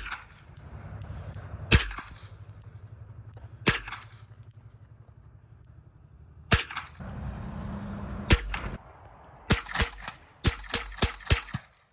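AR-15-style semi-automatic rifle firing: single shots every two seconds or so, a quick pair, then a rapid string of shots, three or four a second, near the end.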